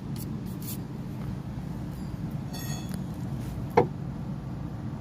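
A steady low hum, with a brief high-pitched chirp midway and a single sharp click a little before the end; the click is the loudest sound.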